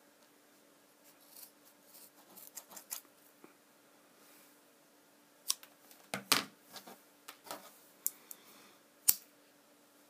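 Scissors snipping through nylon paracord, faint small snips in the first few seconds. Then louder clicks and taps of tools being handled, the sharpest one near the end as a lighter is struck.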